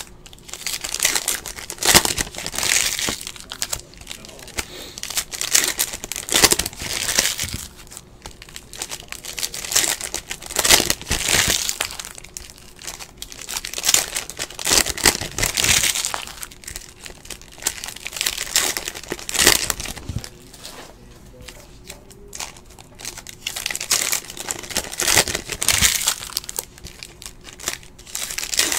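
Foil wrappers of trading-card packs crinkling and tearing as they are opened by hand, in repeated irregular spells of crackle every second or two.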